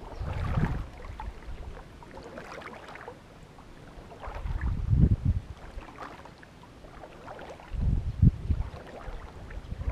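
Shallow floodwater sloshing and splashing close to the microphone, in irregular surges every two to three seconds.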